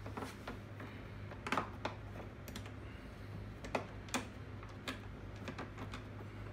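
Scattered light clicks and taps of mounting hardware against a plastic fender flare as a nut is worked onto its bolt by hand, over a steady low hum.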